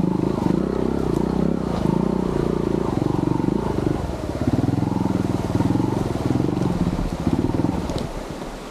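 Yamaha TY-S 125F trials motorcycle's single-cylinder engine running at low revs with an even pulsing note as it climbs a rough forest track. The engine note falls away near the end.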